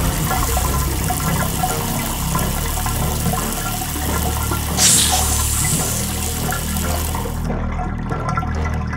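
Water rushing and swirling down a sink drain, like a flush, with a brighter surge of hiss about five seconds in and the high rush dying away near the end.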